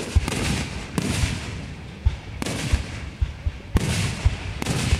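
Aerial firework shells bursting in quick succession, about a dozen bangs and booms over a few seconds, overlapping, with a crackling haze between them.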